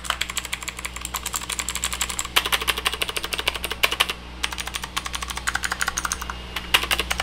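Fast typing on an Aula Solakaka SK961 mechanical keyboard with clicky switches, as a typing sound test: a dense run of sharp, noisy clicks, many per second, pausing briefly twice.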